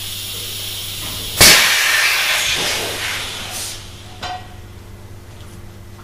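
Compressed air hissing steadily from the Avdel 73200 installation tool and its air line. About a second and a half in, a sudden loud burst of escaping air fades away over two seconds or so as the air line is disconnected with the tool held in its triggered, down position. A small click follows near the end.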